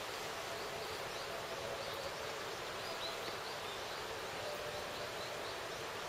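Steady outdoor ambience, an even hiss, with faint repeated high bird chirps through the middle.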